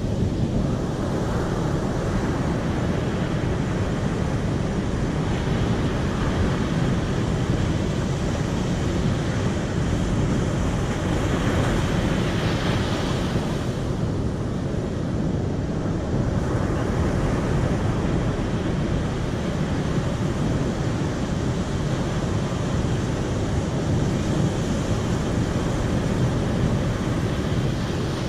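Steady rushing of moving water, a dense even noise that swells a little about halfway through.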